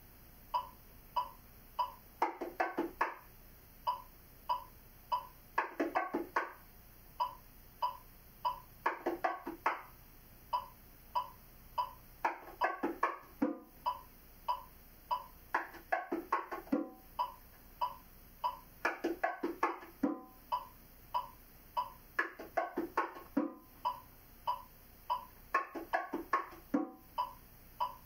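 Bongos playing the martillo groove over a 2-3 son clave: a steady run of light hand strokes at about three a second, with a cluster of louder, ringing open tones about every three and a half seconds.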